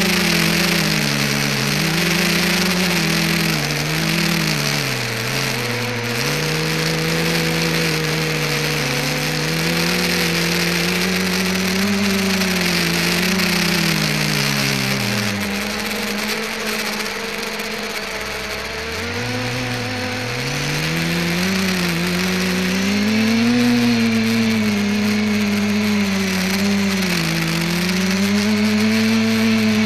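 ETFD2 multicopter's electric motors and propellers, picked up by the onboard keychain camera, buzzing with a pitch that keeps rising and falling with the throttle over a steady hiss. The pitch sinks low a little past halfway, then climbs back up.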